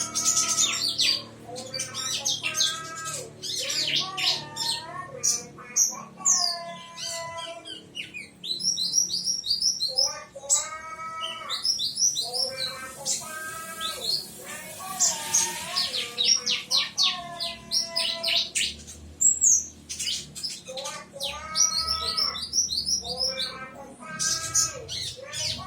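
Ciblek (bar-winged prinia) birds singing in rapid bursts of quick repeated notes, a chattering 'tembakan' volley, with thin high chirps over them. Each burst lasts a second or two, with short pauses between, over a faint steady hum.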